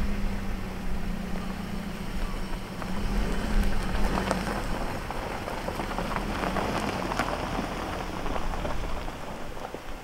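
Nissan Serena minivan pulling away slowly across gravel: a low engine hum with tyres crunching and popping on loose stones, the engine fading as the van moves off.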